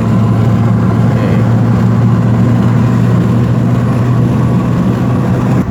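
BMW E90's 2.5-litre inline-six running at steady revs through an aftermarket dual-valve exhaust, giving a loud, even drone that cuts off suddenly at the end.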